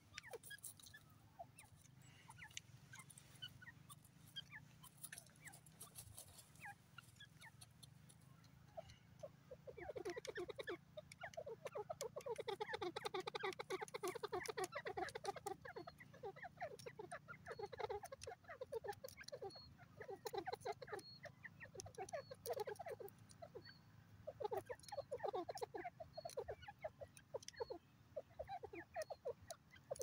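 Grey francolin giving rapid clucking notes in repeated bursts, starting about ten seconds in. Before that, only faint scattered ticks as it pecks in the dirt.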